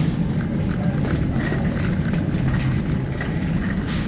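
Shopping cart rolling over a hard store floor: a steady low rumble from the wheels, with the wire basket rattling and clicking now and then.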